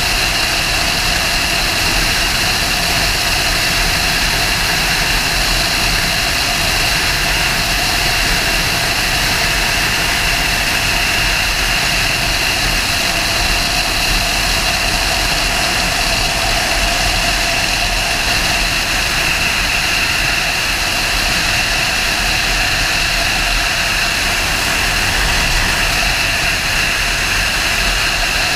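Motorcycle running at a steady cruise, its engine note unchanging under a heavy rush of wind noise on the microphone.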